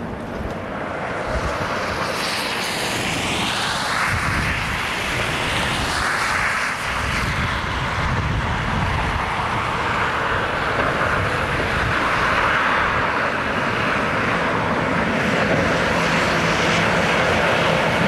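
Road traffic: vehicles passing with a steady rush of engine and tyre noise that grows gradually louder. A low steady engine hum joins in over the last few seconds.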